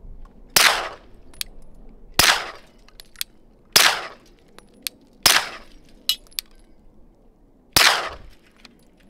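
Five suppressed 9mm pistol shots from a Glock 17 with a Silencer Co Omega36M suppressor in its long configuration, firing 115-grain supersonic rounds, about a second and a half apart with a longer pause before the fifth. Each shot is a sharp crack with a short fading tail, with faint ticks between shots.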